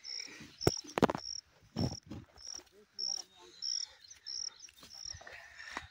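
An insect chirping in an even rhythm, a short high chirp about one and a half times a second, over rustling and a few sharp knocks from a rope being worked around a wooden stake; the loudest knocks come about a second in.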